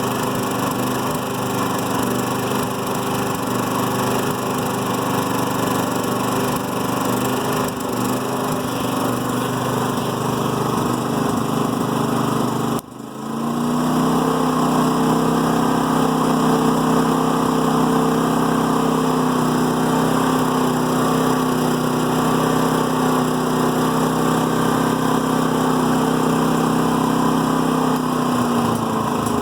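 Firman portable generator engine running in Eco mode with an uneven, rough idle, the slight misfire the owner is asking about. About 13 seconds in the sound breaks off briefly, then the engine runs louder at a higher, steadier speed, and it changes again near the end.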